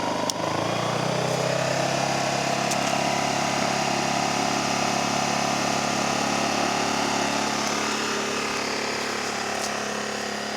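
Ryobi RYi2200 inverter generator's small engine, running without load: after a click near the start it speeds up from economy idle to full speed, then runs steadily at the higher speed.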